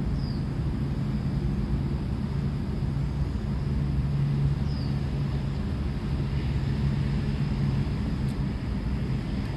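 Steady low rumble of city traffic, with a short high falling chirp twice, about four seconds apart.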